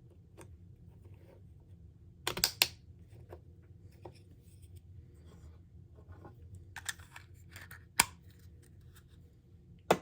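Scattered sharp clicks and light knocks of small plastic shaver parts being handled and pressed together by hand: a quick cluster about two seconds in, then single clicks at about eight seconds and again near the end.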